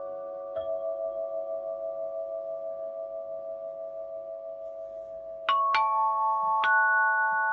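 Meditation music of struck, bell-like tones that ring on and overlap, with a slow wavering in the sustained notes. A note is struck about half a second in, and three more follow in quick succession a little past the middle, louder.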